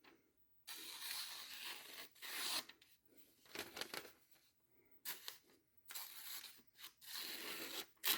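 Sharpened kitchen knife slicing through sheets of paper in several strokes, one long cut about a second in and shorter ones after, as a test of how sharp the edge is.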